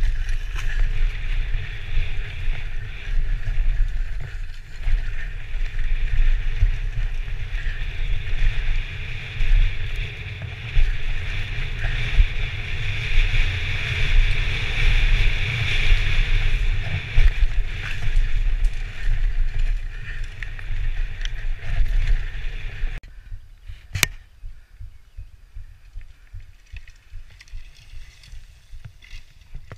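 Wind buffeting a helmet-mounted camera's microphone, mixed with tyres rolling and rattling over a dirt trail during a fast downhill mountain-bike descent. The noise drops away sharply about three quarters of the way through as the bike slows, followed by a single sharp click.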